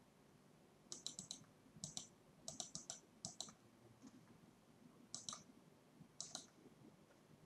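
Computer mouse clicking in quick clusters of two to four clicks, roughly one cluster a second with a longer pause about halfway through, as an answer is coloured in on screen.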